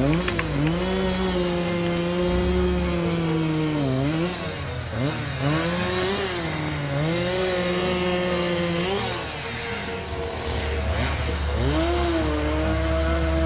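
Hürlimann tractor's diesel engine pulling hard as it skids a chained log, the revs rising, holding and dipping several times over a steady low drone.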